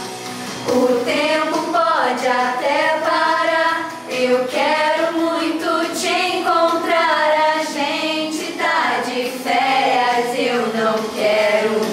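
A small group singing a song together, with women's voices the loudest, in phrases of held notes. This is a group rehearsal in a singing lesson.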